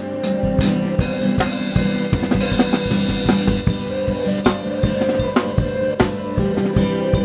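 Worship band playing live with the drum kit to the fore: a steady kick-and-snare beat with cymbals over held notes from the rest of the band.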